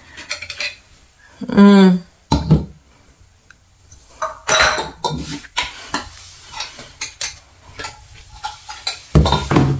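Small glass jars and a metal twist-off lid clinking and knocking together in a plastic colander as a baby handles them: scattered clinks, with a louder cluster of knocks near the end.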